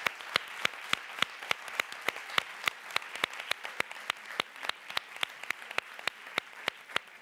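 Audience applauding, with one person's claps close to the microphone standing out sharply and evenly, about three or four a second.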